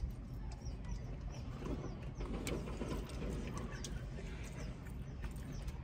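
Eating sounds: chewing and scattered small clicks of a plastic fork in a foam takeout container, over a steady low hum inside a car. Faint bird chirps come from outside.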